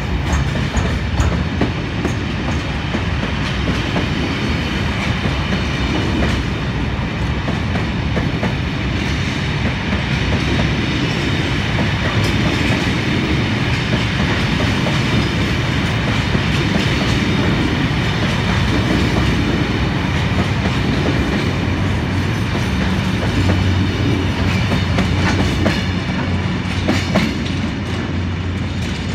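Long train of empty open box freight wagons rolling through at speed: a steady loud rumble and rattle, with the clickety-clack of the wheels over the rail joints.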